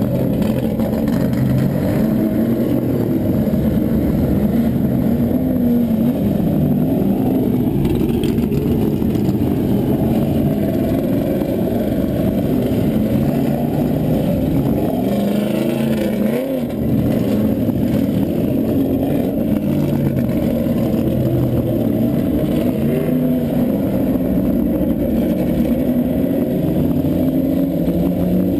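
1973 BMW CSL Group 2 race car's straight-six engine running hard at racing speed, heard from inside the car. Its pitch rises and falls with throttle and gear changes, with a brief dip about 16 seconds in.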